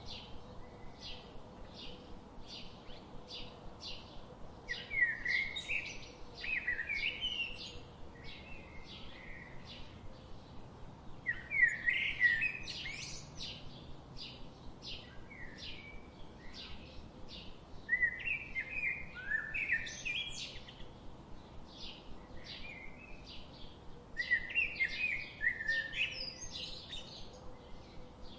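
Songbirds singing: a steady series of short chirps about twice a second, broken about every six seconds by a louder, more intricate warbling phrase, four times in all.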